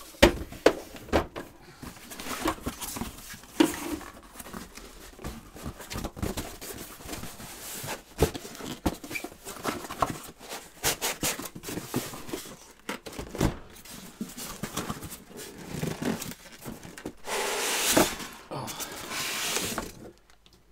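Cardboard boxes and packing being handled: irregular knocks, thumps and scrapes of cardboard. Near the end comes a longer rustling, rubbing stretch as a styrofoam packing tray is drawn out of the packaging.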